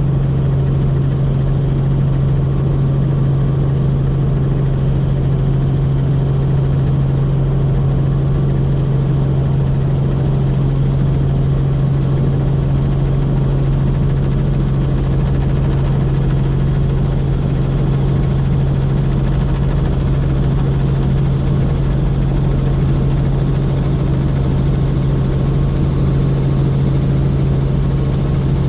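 Helicopter in flight, running with a loud, steady drone and a strong low hum that holds one pitch throughout.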